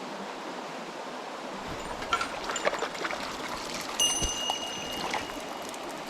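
Small mountain stream running steadily, with a few light clicks and knocks, and a brief high steady tone about four seconds in.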